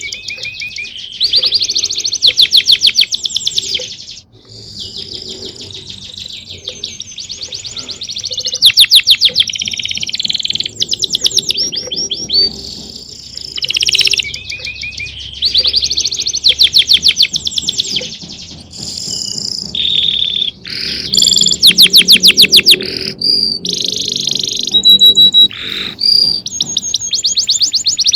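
Songbirds singing: fast trills and strings of high chirps in phrases a second or two long, one after another with short pauses, the loudest trills about 9 and 22 seconds in.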